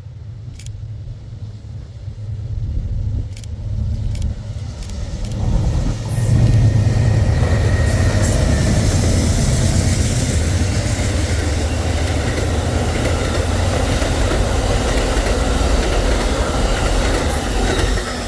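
A train passing close by. A low engine rumble builds over the first few seconds with a few sharp clicks, then the loud, steady noise of the train rolling past takes over about six seconds in and holds.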